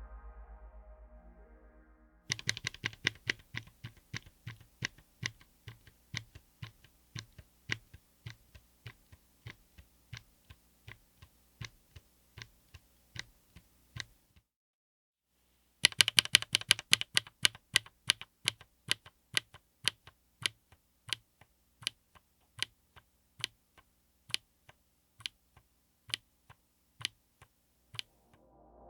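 Mechanical keyboard with Chosfox x Masro Ragna linear switches, in a Tofu60 aluminum case with an FR4 plate, being typed on in two runs of keystrokes. Each run starts with a quick flurry of presses and then slows to single, evenly spaced keystrokes, with a pause of about a second and a half between the runs. Background music fades out at the start and returns at the very end.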